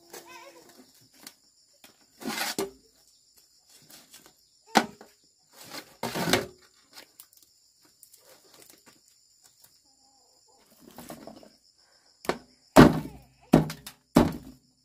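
Irregular knocks and thuds, a few scattered ones early and a quick cluster of louder ones near the end, over a faint steady high-pitched drone.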